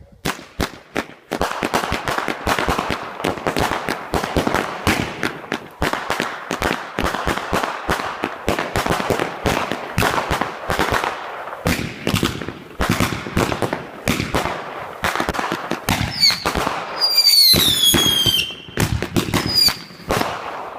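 Fireworks and firecrackers going off: a dense, continuous crackle of rapid pops. Near the end a high whistle slides down in pitch over the popping.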